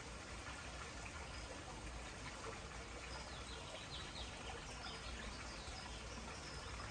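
Faint steady outdoor background noise, with a few faint high bird chirps from about three seconds in.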